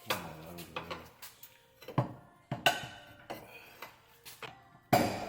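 Metal hand tools clinking and clanking: steel sockets, extensions and a ratchet being handled while unbolting the exhaust Y-pipe. There are a few separate sharp clanks, the loudest about two seconds in and just before the end.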